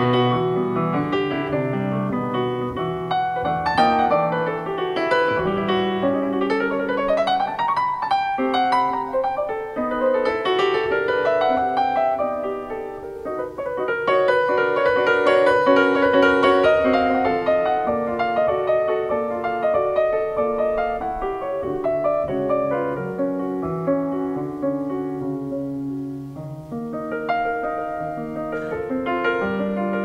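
Solo grand piano played live, many notes and chords sounding together, with a quick upward run about seven seconds in.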